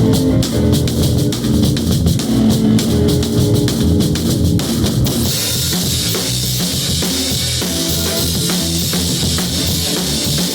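Rock music driven by a drum kit with bass drum. About five seconds in, a steady wash of cymbals comes in over the beat.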